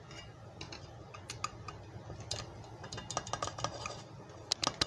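Boiled potato chunks tipped from a mesh strainer into a pot, with scattered light clicks and taps as the strainer knocks the rim, and a few sharper knocks near the end.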